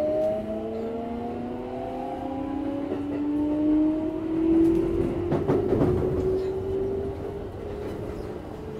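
Keikyu 1000-series electric train running, its VVVF inverter and traction motors giving a whine of several tones that climbs slowly in pitch as the train gathers speed. A quick cluster of clicks from the wheels passing over rail joints comes a little past the middle.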